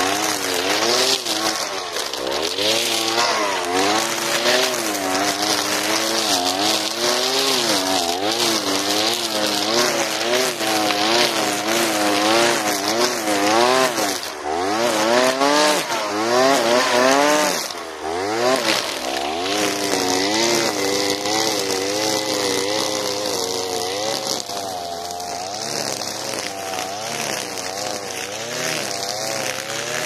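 Alpina Star 55DP two-stroke petrol brushcutter running at high revs, its pitch wavering up and down as the 3 mm square nylon line cuts through thick grass, with a steady high hiss. The revs dip and climb again twice around the middle, and the sound is a little quieter in the last few seconds.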